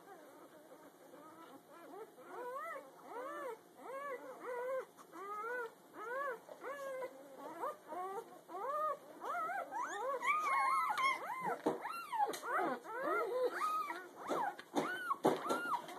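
A litter of day-old newborn puppies squeaking and whimpering: many short calls, each rising then falling in pitch, overlapping more and getting louder in the second half.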